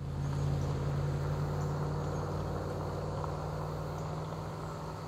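Steady low hum of an idling engine, with faint insects chirping high above it; the sound eases off slightly toward the end.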